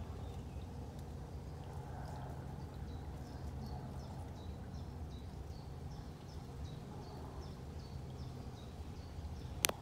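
Steady low rumble of a narrowboat's engine heard from the bow while cruising, with a small bird calling over and over, about two short chirps a second. A single sharp click near the end.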